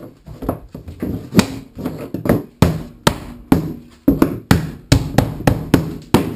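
Repeated mallet blows, about two to three a second, knocking white PVC fittings onto the plastic-pipe frame of a cat perch. The Estwing mallet makes sharp knocks on the plastic.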